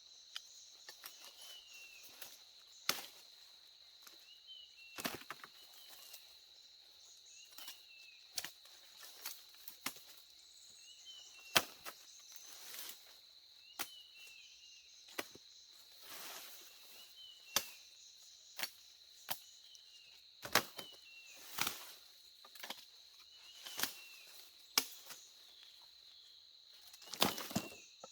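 Steady high-pitched insect drone with short falling chirps repeating every second or two, and sharp knocks at irregular intervals, about one a second, the loudest of them near the end.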